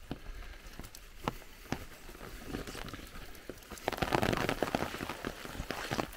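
Light, steady rain pattering, with scattered sharp drips and clicks close by, and a louder stretch of dense crackling about four seconds in.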